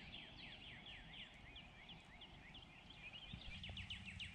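Birds singing in the dawn chorus: many short, downslurred whistled notes that quicken into a fast run of repeated notes about three seconds in. A low steady hum comes in at the same time.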